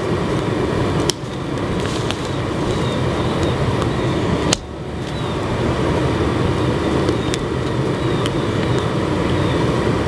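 Steady rushing roar of a homemade wood-fed foundry furnace burning under forced air from its blower, flame jetting out through the lid. Two sharp cracks come about a second in and again near the middle.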